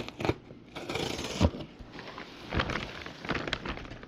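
A cardboard shipping box being handled and opened: a stretch of scraping and tearing about a second in, with scattered knocks and thumps.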